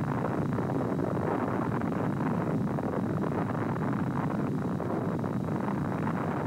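Sound of a huge explosion: an abrupt start, then a steady, dense rumbling noise that holds at full strength and begins to fade right at the end.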